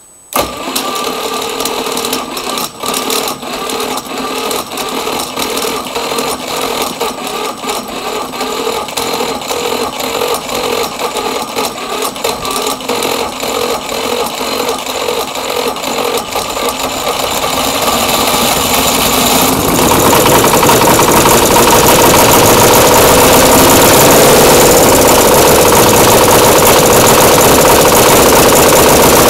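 Cold diesel twin motorbike engine catching suddenly and running roughly with a regular pulsing beat, then about two-thirds of the way through picking up and settling into a louder, steadier run. This fits the owner's aim of getting it firing first on one cylinder, then on both.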